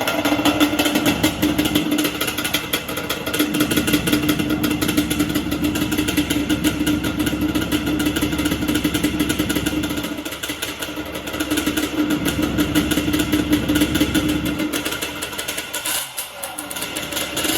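Truck's 350 V8 engine running just after start-up on full choke, loud and steady, its low rumble easing off and coming back a few times.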